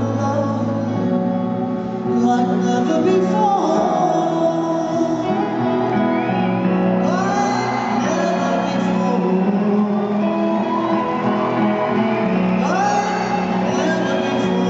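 Live concert music with singing, recorded in a large arena, with shouts and whoops from the audience over it.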